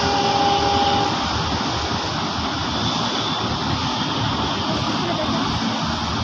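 Steady road traffic noise: a continuous rumble and hiss of passing vehicles.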